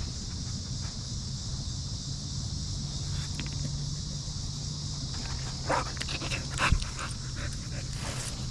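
Dogs vocalizing in a short burst of sharp sounds about six to seven seconds in, over a steady high hiss.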